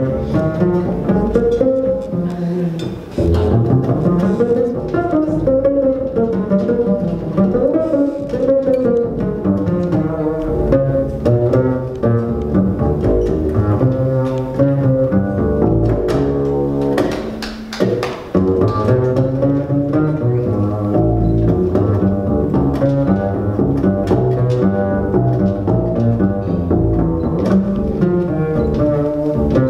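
Upright double bass solo played pizzicato: a run of plucked jazz bass notes, with a brief pause a little over halfway through.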